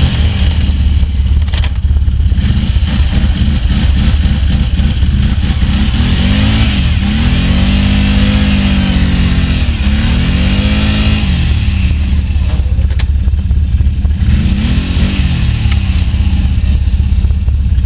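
Can-Am Outlander 500 XT ATV's V-twin engine revving up and down in repeated swells as the quad sits stuck in deep wet snow with its wheels spinning; the longest, highest revs come in the middle, another shorter one near the end.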